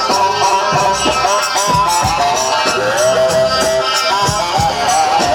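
Loud Egyptian wedding dance music: a wavering, bending melody over a steady drum beat with shaker percussion.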